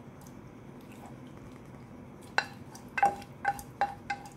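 Stainless steel cookware clinking: a pan knocked against the rim of a cooking pot about half a dozen times in the second half, each knock ringing briefly, as the pan is emptied into the pot.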